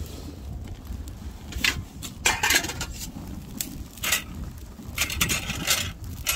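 Metal clinks and scrapes of a utensil against a cooking pot, coming in short irregular clusters, over a steady low rumble of wind on the microphone.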